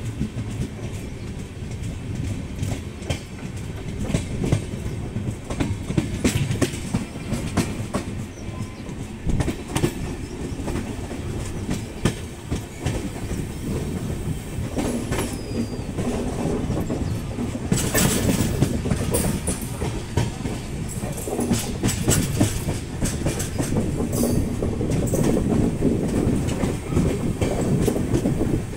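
Wheels of a moving passenger train coach running over track and points: a steady rumble with irregular clickety-clack as the wheels cross rail joints and switches. A short high wheel squeal comes about halfway, and the running gets louder about two-thirds of the way through.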